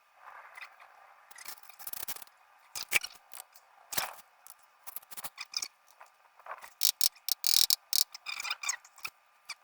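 Irregular scraping and clicking of hand tools working on patio tile, in uneven bunches of short strokes, the densest about two-thirds of the way through.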